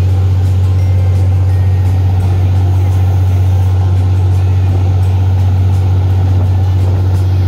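A boat's engine running steadily under way: a loud, constant low drone, with the rush of water from the wake.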